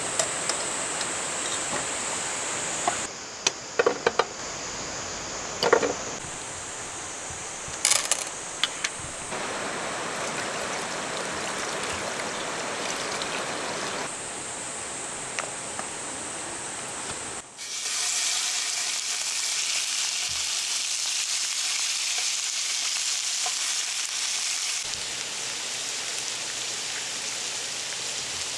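Food sizzling and frying in a pan, with stirring and a few sharp knocks of utensils on cookware about 3 to 6 seconds in and again at 8 seconds. The hiss changes at abrupt cuts, and it turns brighter and more sizzling after a hard cut about two-thirds through.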